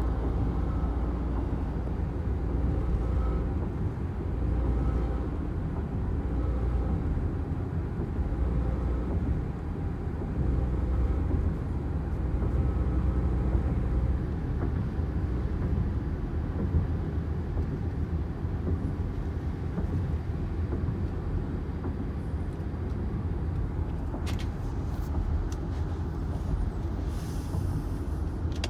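Car humming under sudden hard throttle, a low drone with a fainter tone above it that swells and fades every couple of seconds, stronger in the first half. A few sharp clicks near the end. The cause of the hum is unknown to the owner.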